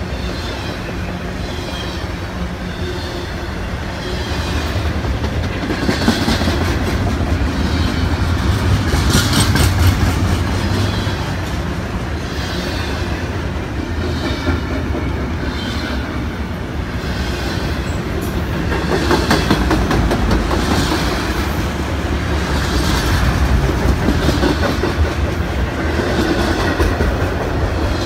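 Double-stack intermodal freight train rolling past close by: a steady rumble of steel wheels on rail, swelling and easing as the cars go by, with clicks every few seconds as wheels cross rail joints.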